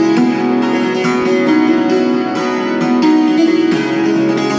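Hammered dulcimer played with hand-held hammers: a quick, steady stream of struck notes that ring on and overlap on its strings, a lively tune with a sustained ringing bass.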